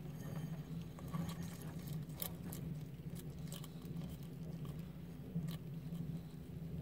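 Bearded dragon biting and chewing fresh basil leaves, a run of short crisp crackles about a second in and another single one near the end, over a steady low hum.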